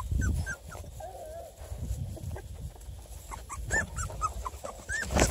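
Hungry two-and-a-half-week-old beagle puppies whimpering in short, high, rising-and-falling squeaks, more often in the last couple of seconds, with one longer wavering cry about a second in. Low rustling runs underneath.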